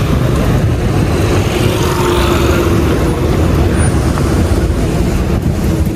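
Steady road traffic noise: vehicle engines running with a low rumble.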